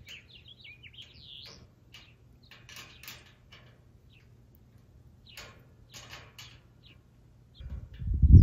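Birds chirping in short gliding calls near the start, with scattered light clicks and scrapes from work at the base of a small metal windmill tower. A loud low rumble starts near the end.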